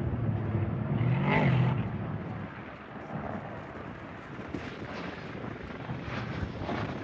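Engine drone at a steady pitch, swelling about a second and a half in, easing off, then building again near the end.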